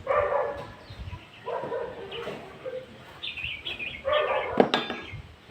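A dog barking three or four times in short pitched barks, with one sharp knock about four and a half seconds in.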